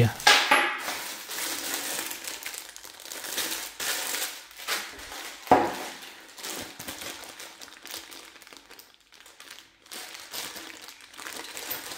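Plastic bags of screws and fixings crinkling as they are handled and set down on a table, with a single sharp knock about five and a half seconds in.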